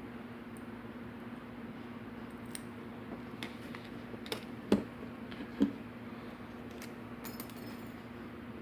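Scattered small metallic clicks and taps of lock parts and pins being handled as a pin-tumbler lock is taken apart, the loudest about halfway through and a quick flurry near the end, over a steady low hum.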